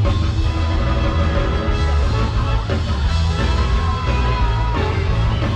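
Loud music with a heavy bass line playing over a festival sound system.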